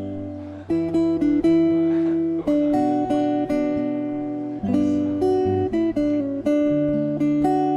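Background music: a solo fingerstyle acoustic guitar playing a gentle melody over held bass notes.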